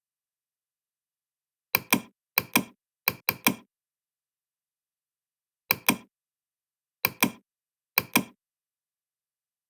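Sharp mechanical clicks, mostly in quick pairs, in six groups at uneven intervals, with dead silence between the groups.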